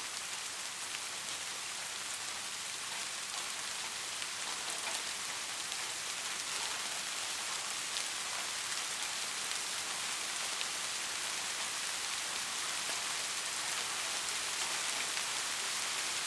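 Steady rain falling, an even hiss scattered with many small drop ticks, growing slightly louder toward the end.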